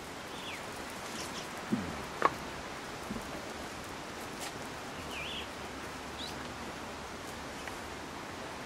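Steady outdoor background hiss with a few faint, short bird chirps. A couple of short knocks, likely the camera being handled, come about two seconds in.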